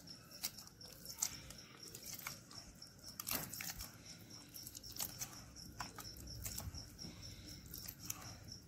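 A hand squeezing and working thick rice-flour and grated-potato batter in a stainless-steel bowl, with faint, irregular wet squelches and light clicks.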